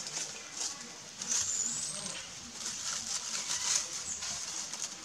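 Dry leaf litter rustling and crackling as macaques pick through it with their hands, with one thin high chirp about a second and a half in.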